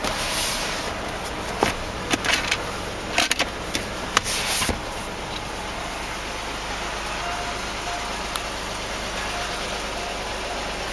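A 2004 Land Rover Freelander's 2.5-litre V6 idling steadily, heard from inside the cabin. In the first half there are several rustles and knocks of handling against the seats.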